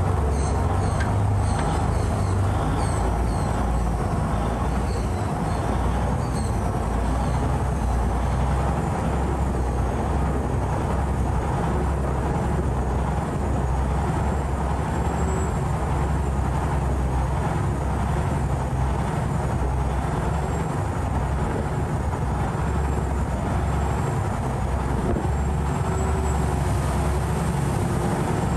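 Saen Saep Canal passenger boat's engine running steadily and loud under way, with a constant rush of water and wind.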